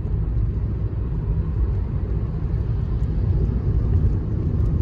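Steady low rumble of a car driving along the road: tyre and engine noise.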